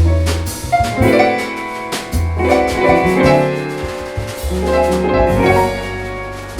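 Small jazz band playing: keyboard chords over long double-bass notes and drum kit.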